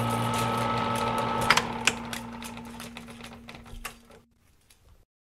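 Rapid clicking and crackling over a hiss, with a low held tone underneath, fading out over about four seconds. A couple of sharper, louder clicks stand out about one and a half to two seconds in.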